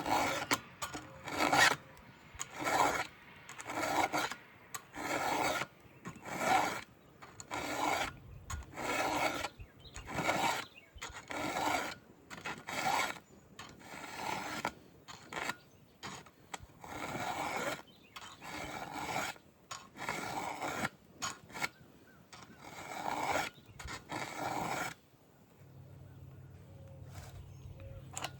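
Round file rasping by hand across the steel cutters of a Stihl MS 500i chainsaw chain, one stroke about every second, sharpening the teeth. The strokes stop about 25 seconds in.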